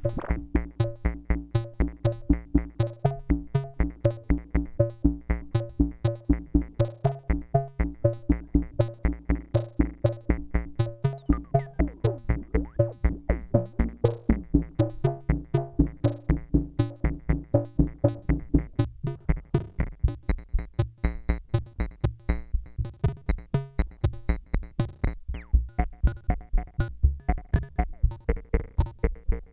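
Behringer Neutron analog synthesizer playing a fast, even sequence of short, plucky bass-heavy notes, several a second, with the pitches moving through a repeating pattern.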